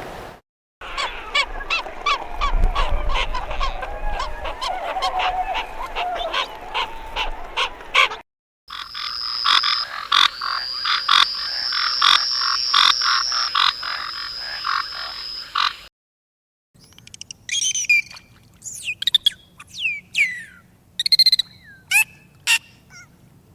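Animal calls in three short clips cut together. First comes a fast run of repeated croaking pulses, then a steady high trill over pulsing calls, then a series of short falling whistled calls.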